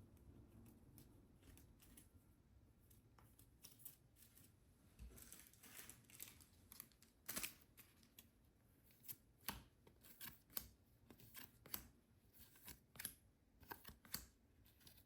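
Quiet handling sounds from unboxing: scattered sharp clicks and snaps, more frequent in the second half, with a brief rustle about six seconds in.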